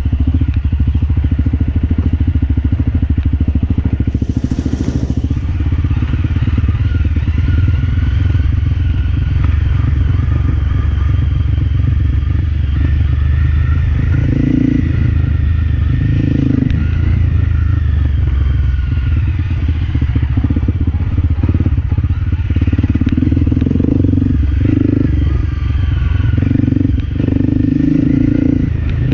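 Motorcycle engine running steadily while riding over a rough, loose-stone road, with clattering from the bike over the stones. From about halfway through the engine note swells repeatedly.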